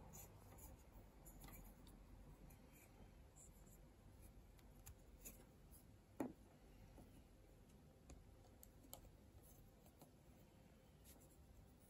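Near silence with faint, scattered clicks of small plastic mini-block models being handled, with one somewhat louder tap about six seconds in.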